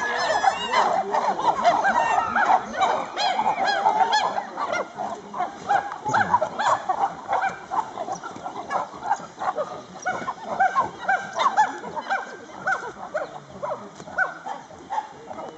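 A group of chimpanzees calling: many short hoots and grunts overlapping in a continuous chorus, densest in the first few seconds.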